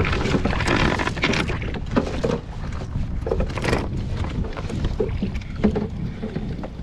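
Wind buffeting the microphone with a low rumble, and water splashing and slapping irregularly around a kayak at sea.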